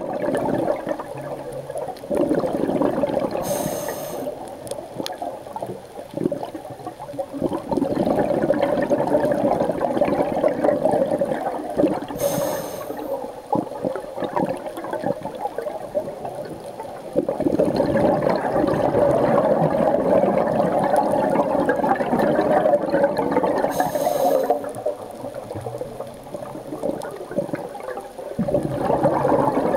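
Scuba diver breathing through a regulator underwater: long gurgling rushes of exhaled bubbles that swell and fade every several seconds, each cycle marked by a short, high hiss of inhalation.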